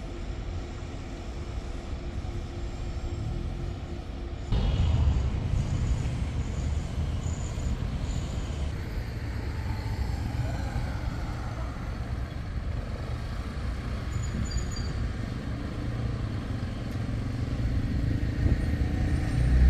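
Street traffic ambience: a steady low rumble of passing cars that gets louder about four and a half seconds in. A motor scooter passes near the end.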